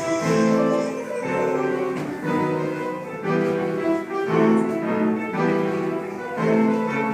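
Instrumental classical music playing at a steady, moderate level, with held notes changing about once a second.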